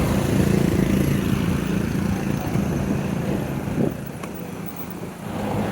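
A motor vehicle's engine passing close by with a steady hum, fading away after about three seconds as traffic noise rises again near the end.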